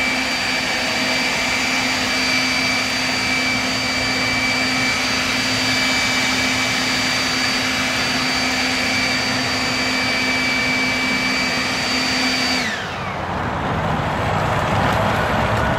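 Ryobi leaf blower running steadily with a high whine as it blows popcorn fed from a bucket by an auger. About 13 seconds in it is switched off and the whine falls away as it spins down, leaving a steady background rumble.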